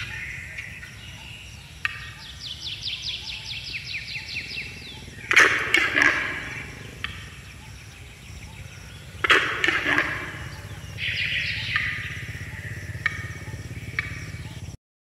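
Birds chirping and calling: a fast, even trill about two seconds in, two louder calls around five and nine seconds in, and further chirps later, over a low steady rumble.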